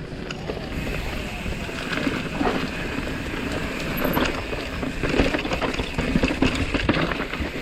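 Mountain bike rolling fast down a dirt trail: knobby tyres on dirt with a constant rush and the bike clattering over small bumps, with wind on the microphone.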